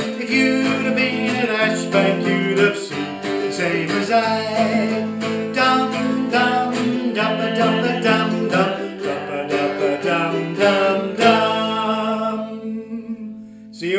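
Cigar box guitar and ukulele strumming the song's instrumental ending, finishing on a chord left to ring and fade about eleven seconds in.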